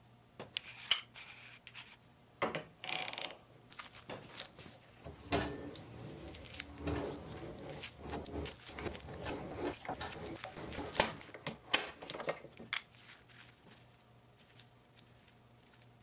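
Wheel-type pipe cutter being turned around a steel fence-post pipe, the cutting wheel scraping and grinding in uneven strokes with sharp metal clicks as it cuts a short ring off the pipe.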